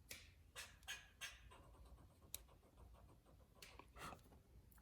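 Near silence with faint, scattered rustles and one small click about two seconds in: light handling of small objects.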